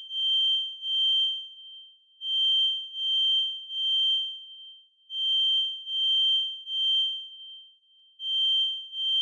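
Kidde FireX i4618AC smoke alarm sounding its full alarm: a single high-pitched beep in groups of three, each group followed by a longer pause, repeating about every three seconds. This is the temporal-three pattern that signals fire.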